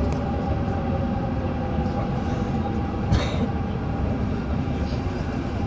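Running noise inside an RER A MI09 double-deck electric train on the move: a steady low rumble with faint steady tones from the train, and a single sharp knock about three seconds in.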